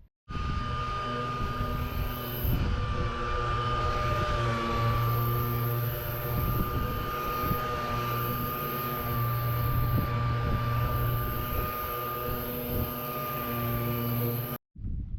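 A machine running steadily, with a constant high whine over a low hum. It starts and stops abruptly.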